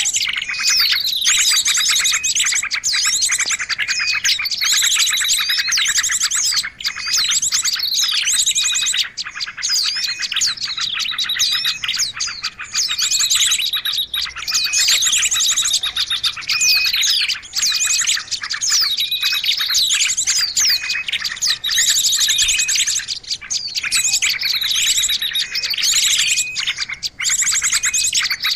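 Bird-lure (pikat) recording for small birds: a dense mix of many small songbirds' chirps and calls overlapping without a break. Rapid trills and down-slurred notes, the pattern repeating every few seconds.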